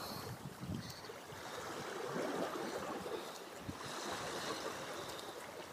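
Small waves lapping and washing against shoreline rocks, swelling and easing unevenly.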